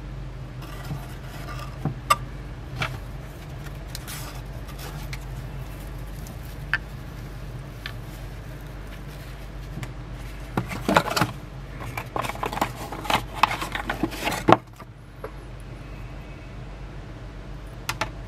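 Handling noise from unpacking: scattered taps, scrapes and rustles of a cardboard box and a mesh pouch being handled, with a busier run of clicks and rustling about two-thirds through, over a steady low hum.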